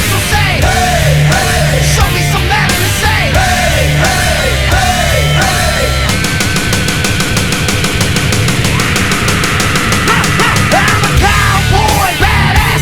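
Loud heavy rock music with distorted guitar and drums, without vocals. Repeated bending guitar notes give way about halfway through to a fast, even pulse under a held, wavering note, and the bends return near the end.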